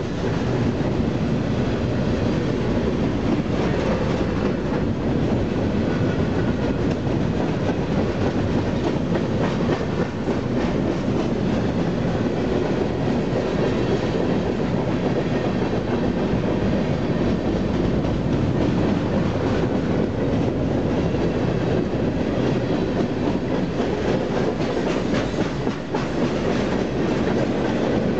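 Freight cars, covered hoppers and then gondolas, rolling past close by: a steady rumble of steel wheels on rail, with repeated clacks as the wheels cross rail joints.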